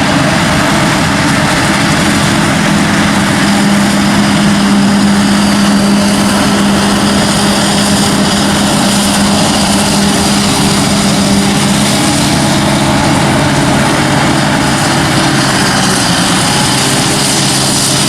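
Heavy diesel engines of maize-harvesting machinery, a forage harvester and tractors with trailers, running loud and steady at work. The engine note drops a little about two-thirds of the way through.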